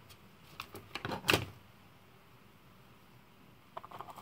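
Small handling knocks and clicks at a desk as a buckshot pellet is measured with a metal measuring tool: a few sharp knocks about a second in, then a quick run of small clicks near the end.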